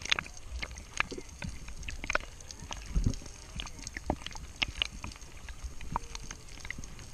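Underwater sound picked up by a GoPro in its waterproof housing: irregular sharp clicks and pops, a few a second, over a low rumble of moving water.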